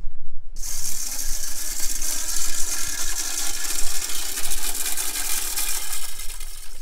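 Automatic corn feeder going off: its motor spins the plate and flings corn, a rattling spray of kernels. It starts suddenly about half a second in and stops near the end.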